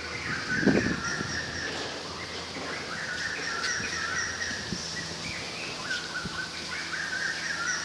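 Many small birds chirping at once in a dense, overlapping chorus, with a thin, steady high tone above the chirps. Low wind and rustling noise runs beneath, and a brief low thump comes about a second in.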